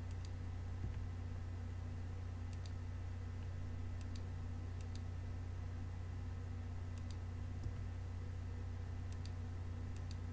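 Computer mouse buttons clicking, a quick pair of clicks every second or two, several times over, over a steady low hum.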